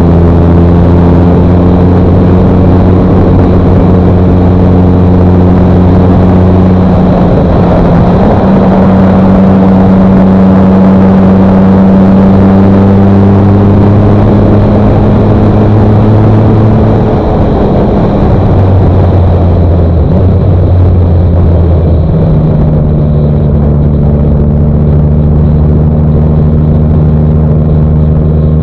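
Motorcycle engine pulling steadily at road speed, heard from the bike itself with wind and road noise over it. The engine note climbs a little about a third of the way through, eases off past halfway, and settles lower near the end.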